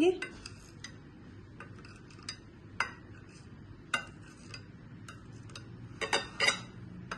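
A knife cutting set jelly in a glass bowl, the blade clicking and tapping lightly and irregularly against the glass, with a quick run of taps about six seconds in.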